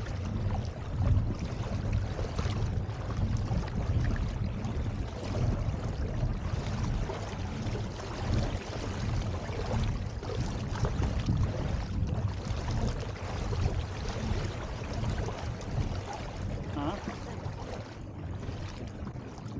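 Wind rumbling on the microphone over water rushing and splashing along a pedal-driven kayak's hull as it moves across the lake, with a second kayak held alongside.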